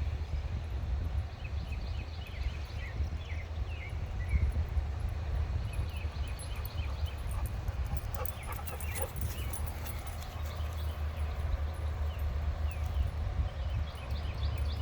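A German shorthaired pointer and two Irish Setters running and playing, their paws thudding in a galloping rhythm. A steady low rumble, typical of wind on the microphone, runs underneath, and a burst of clicks and rustles comes about halfway through.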